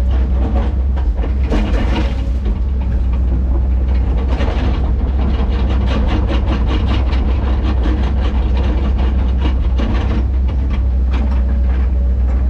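Tracked heavy machine's diesel engine running steadily, with a constant low drone and rapid, irregular clanking and rattling from its steel tracks and work gear.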